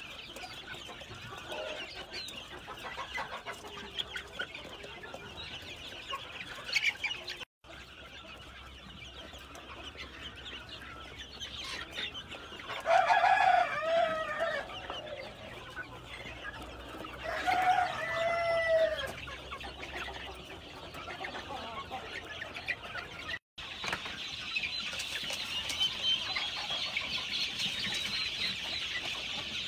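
Flock of young Fayoumi chickens clucking and cheeping throughout, with two louder long calls about 13 and 18 seconds in and busier chatter in the last few seconds. The sound breaks off for an instant twice.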